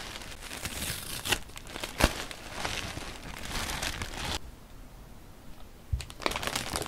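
Tan tissue wrapping paper crinkling and rustling as a parcel is opened by hand, with a couple of sharp crackles; it quiets about four seconds in. Near the end a soft thump, then the crisp crinkle of clear plastic stationery packets being handled.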